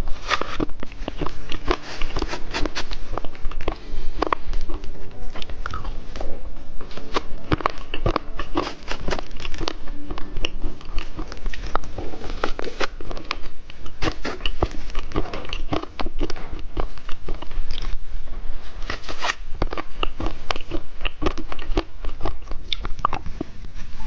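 Close-up crunching and chewing of hard dice candy, a dense run of sharp cracks and clicks with brief pauses between bites.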